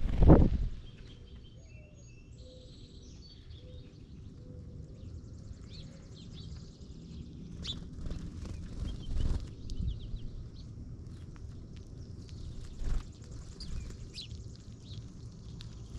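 Small birds chirping on and off, short high calls scattered throughout, over a steady low rumble, with a few dull thumps, the loudest right at the start.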